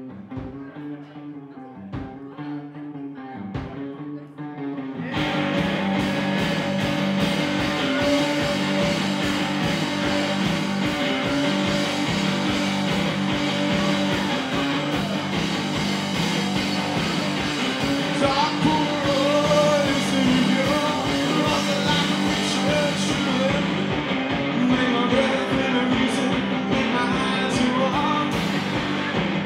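Live rock band. A lone electric guitar plays a repeated figure whose pitch swoops up and down. About five seconds in, drums and loud distorted electric guitar crash in together, and a man's singing voice joins over the band in the second half.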